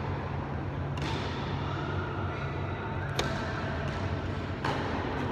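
Tennis ball struck by racquets and bouncing during a doubles rally, the sharp pops echoing in a large hall. The loudest comes about three seconds in and another about a second and a half later, over a steady low hum.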